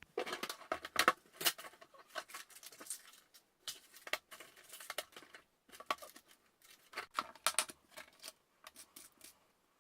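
Handling of a printed paper template and small parts: irregular crisp clicks, snips and paper rustles, some louder than others.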